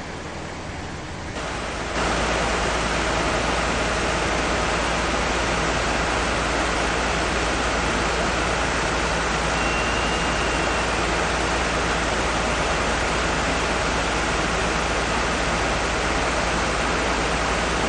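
A steady rushing noise with a deep rumble beneath it. It grows louder about two seconds in and then holds level.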